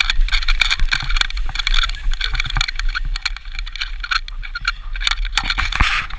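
Crunchy scraping of snow under people sliding down a ski slope, full of short crackles, with a steady low rumble of wind on the camera's microphone. The scraping slackens about halfway through as they come to rest.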